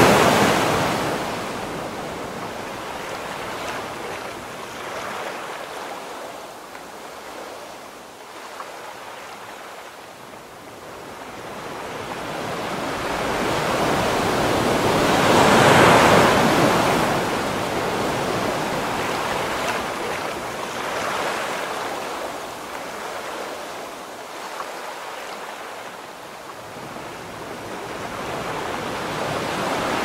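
Ocean surf, waves washing in and drawing back. The surf swells loudest right at the start and again about halfway through, with quieter lulls between.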